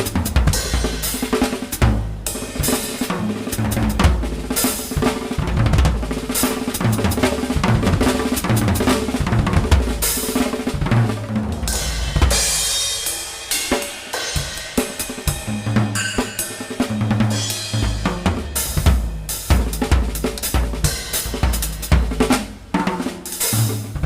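Drum kit played in a busy groove, with bass drum, snare and cymbals, easing off briefly about halfway through before picking up again.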